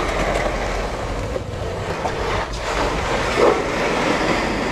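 Oil drain pan full of used engine oil being slid across a concrete floor: continuous scraping.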